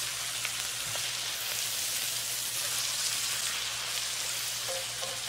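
Chopped cabbage frying in bacon grease in a cast-iron skillet: a steady sizzling hiss as it is stirred and turned with a spatula.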